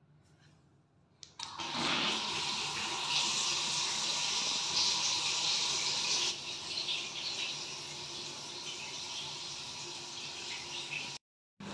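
Water pouring from a bathtub spout into a jetted tub as it fills: a steady rush of running water that starts about a second and a half in, eases slightly after about six seconds, and cuts off suddenly near the end.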